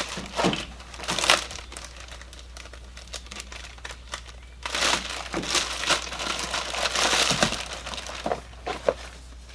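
Packaging of an airbrush kit box crinkling and rustling as it is opened, in several bursts with quieter pauses between, the longest stretch in the second half.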